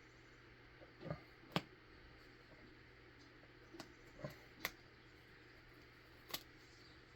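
Scattered handling sounds from work on a leather belt strap with metal plates: about six short clicks and knocks, the sharpest a little over a second in, over a faint steady low hum.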